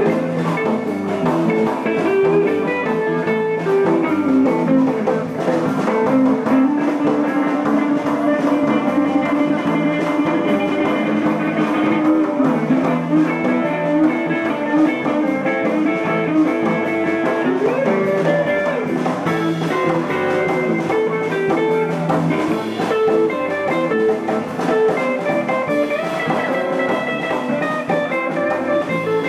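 Live blues band playing an instrumental passage: guitars, electric bass and drum kit, with a guitar carrying long held and sliding notes and no singing.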